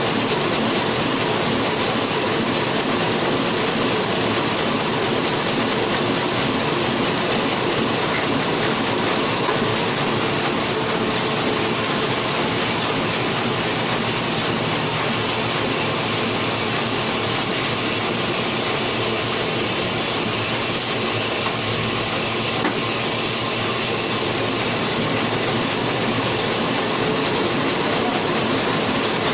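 Heidelberg offset printing press running steadily, a dense, even mechanical noise that holds unchanged throughout.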